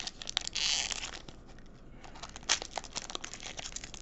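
A foil Panini Mosaic trading-card pack being torn open by hand: a tearing rip about half a second in, then the wrapper crinkling and crackling, with a sharper snap about two and a half seconds in.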